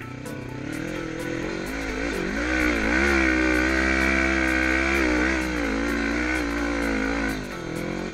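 Yamaha Raptor 350 quad with a swapped-in Honda CB500 engine revving hard under load up a sand hill. It builds from about a second and a half in, holds loud through the middle with the pitch rising and falling, and drops off near the end.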